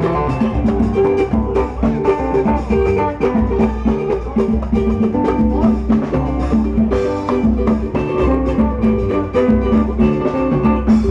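Live band playing an instrumental passage: plucked strings over drums and percussion keeping a steady beat.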